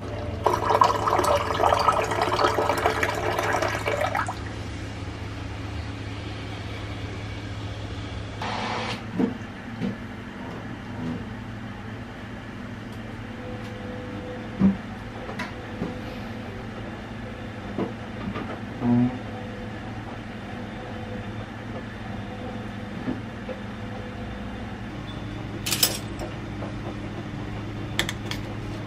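Hot water dispensing from an electric water boiler into a ceramic mug, a steady splashing gush lasting about four seconds. After that come scattered light clicks and knocks over a faint, steady low hum.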